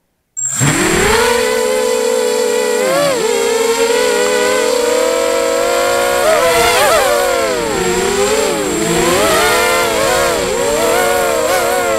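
QAV250 FPV racing quadcopter's brushless motors and propellers on a 4S battery, heard from the onboard camera: they spin up suddenly about half a second in, then give a loud buzzing whine whose pitch swoops up and down as the throttle changes through the flight.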